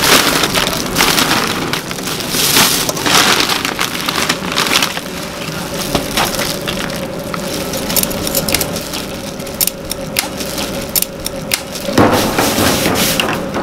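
Dry crackling and rustling of dried baby shrimp and shiitake mushrooms being handled and pressed by a plastic-gloved hand into a perforated stainless steel stock basket. Dense irregular crackles and clicks run over a steady faint hum.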